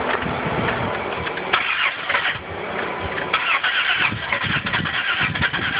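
Car engine being cranked over by the starter motor without settling into a steady run. To the owner it sounds different, though they don't think it is a dead battery.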